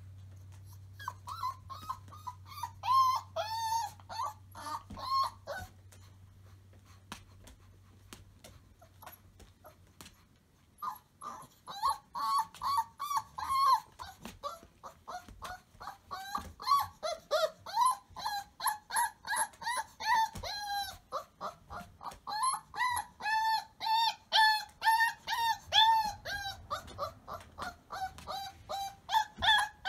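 Puppy whining and yipping in short, repeated high cries: a brief bout in the first few seconds, a pause, then a near-continuous string of two or three cries a second.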